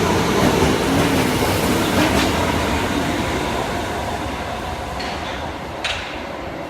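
Osaka subway 22 series train pulling out of the station, its cars rolling along the track with a few sharp clicks from the wheels, the running noise slowly fading as it moves off.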